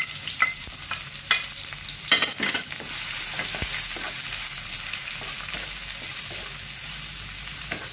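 Chopped onions sizzling in hot oil in a frying pan, stirred with a wooden spatula. Through the first three seconds the spatula knocks and scrapes against the pan several times, then a steady sizzle carries on.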